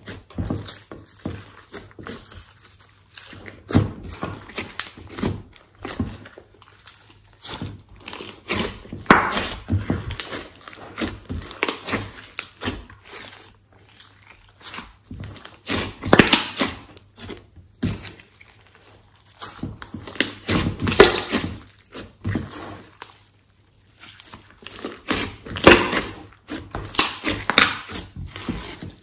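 Glossy slime being squished, stretched and folded by hands in a glass dish: an irregular run of sticky clicks and crackles, with a few brief pauses.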